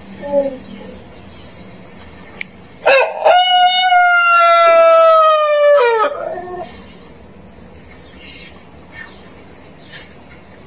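Rooster crowing: one loud, drawn-out crow of about three seconds starting about three seconds in, held level and dropping at the end. A brief faint call comes near the start.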